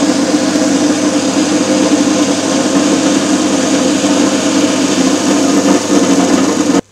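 Electric malt mill running steadily as it grinds grain: a loud motor noise with a steady low hum. It cuts off suddenly near the end.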